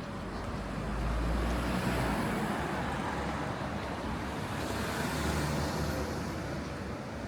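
City street traffic: motor vehicles passing close by, the noise swelling about a second in and again around five seconds.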